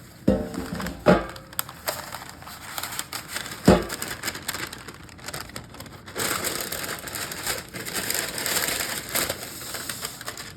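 Three sharp clanks from a metal roasting pan, the first two with a short ring, then several seconds of steady crinkling rustle from the parchment paper the loaf sits on as it goes into the pan.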